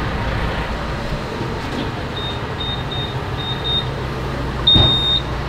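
Gas pump keypad beeping: a run of short, high beeps as keys are pressed, then one longer beep with a knock near the end, over a steady low hum.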